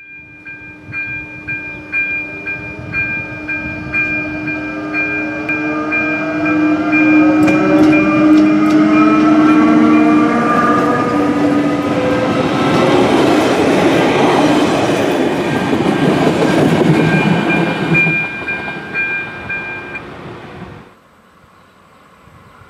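Electric-hauled České dráhy passenger train passing close: a whine from the traction equipment rising in pitch, then the coaches rattling and clattering over the rails, with a warning bell ringing about twice a second alongside. The sound cuts off suddenly near the end.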